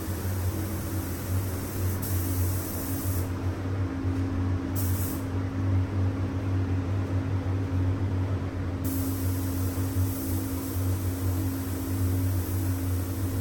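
Paint booth running with a steady low hum from its ventilation fans, and a spray gun hissing as it lays on the colour coat. The hiss stops about three seconds in, comes back briefly near five seconds, and resumes near nine seconds.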